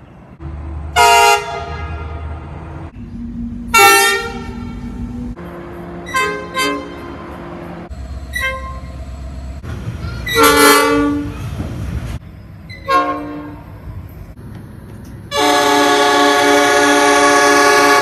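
Diesel locomotive horns sounding a series of separate blasts from several trains, cut one after another: mostly short toots, a longer blast about ten seconds in, and a long, loud sustained horn over the last few seconds. Low engine and rail rumble runs underneath.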